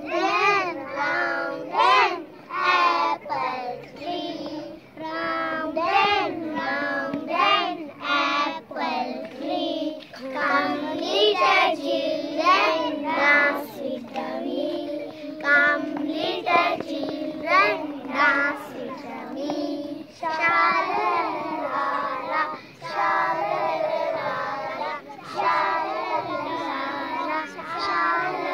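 A group of young schoolchildren singing a song together in short phrases, as an action song.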